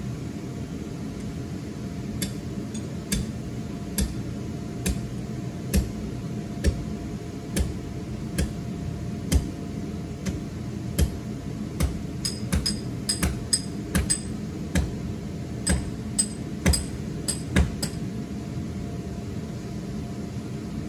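A hammer striking a metal ground stake, a run of sharp metallic knocks about once a second, quicker for a short stretch in the middle, stopping near the end. Under it runs the steady hum of the inflatable's blower.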